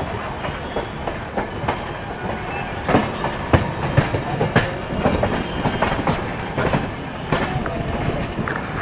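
Moving passenger train coach heard from its open doorway: a steady rumble of the wheels on the track with irregular sharp clacks over the rail joints, coming thicker from about three seconds in.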